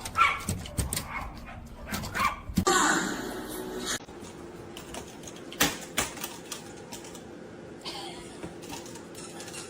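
Dog sounds with a quick run of sharp clatters and knocks in the first four seconds, then a quieter stretch with a faint steady hum and a couple of single knocks.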